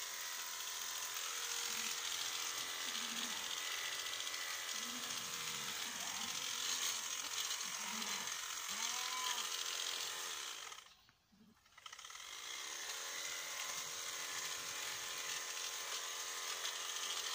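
Electric sheep-shearing clipper running steadily as it cuts through fleece. About eleven seconds in its motor winds down and stops for about a second, then spins back up and keeps running.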